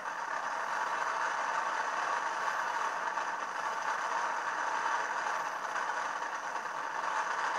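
Steady rushing roar of freefall wind from skydiving footage, played back through small computer speakers, so it sounds thin and without bass.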